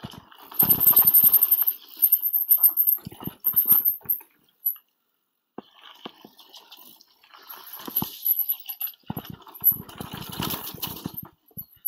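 Mountain bike riding down a rough dirt trail: tyres and frame rattling with sharp knocks over bumps, and the rear freehub ticking rapidly while coasting. Near silence for about a second near the middle.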